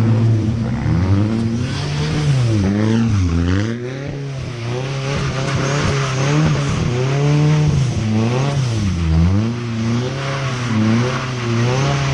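Car engine revving up and down over and over, its pitch dipping and climbing about once a second, over a steady hiss that fits tyre noise.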